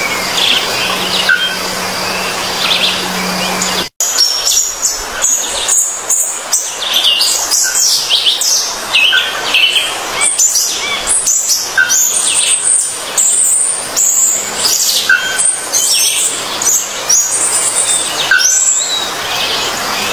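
Many small birds chirping and twittering at once, short overlapping calls packed closely together. A steady low hum lies under the first few seconds, then the sound cuts out for an instant and the chirping goes on without the hum.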